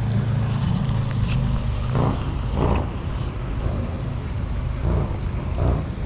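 Steady low rumble of a motor vehicle engine, with a few short, brief sounds over it.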